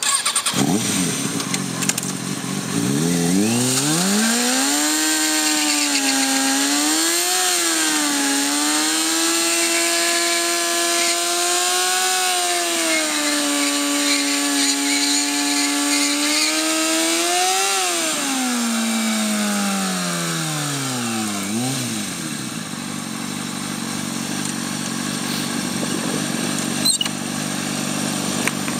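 Kawasaki ZX-6R 636 inline-four, through an aftermarket Jardine exhaust, revved hard and held at high revs during a stationary burnout, with the rear tyre spinning against wet pavement. The revs climb about three seconds in and waver slightly while held. They drop off after about eighteen seconds and settle to a lower, steady idle.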